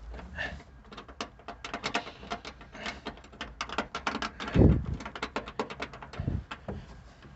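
Hand tool clicking rapidly and unevenly while seat belt mounting hardware is tightened, with a dull thump about two thirds of the way in and another shortly after.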